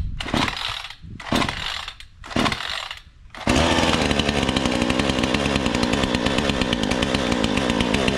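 Bilt Hard TNA-0006 58cc two-stroke chainsaw being pull-started for the first time with the choke out: a few rips of the starter cord about a second apart, then the engine catches about three and a half seconds in and runs steadily on choke.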